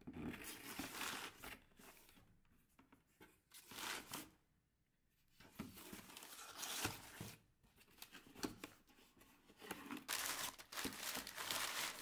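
Newspaper crinkling and rustling as vegetables wrapped in it are handled and packed into a cardboard box, in irregular bursts with a short pause about four seconds in and the busiest rustling near the end.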